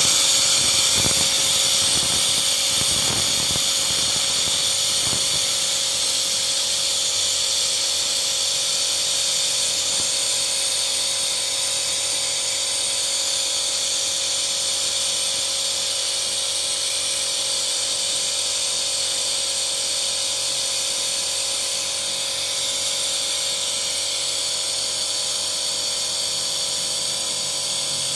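A car's petrol engine running steadily, heard close over the engine bay, with a loud high hiss and steady whining tones over it. The engine is running during a carbon-cleaning treatment, with cleaner liquid fed in through a hose.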